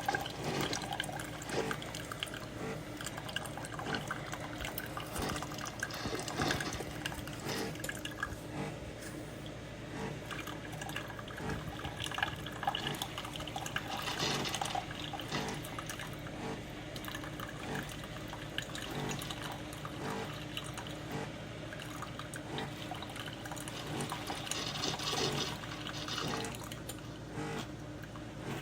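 SiFENE single-serve coffee maker brewing: its pump hums steadily while hot water runs and pours through into the cup.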